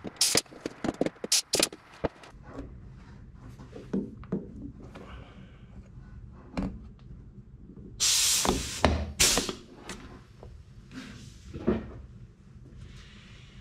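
Sharp metallic knocks and taps of riveting tools on an aluminium aircraft wing spar. About eight seconds in come two loud bursts, the second shorter, from a pneumatic riveting tool setting nutplate rivets.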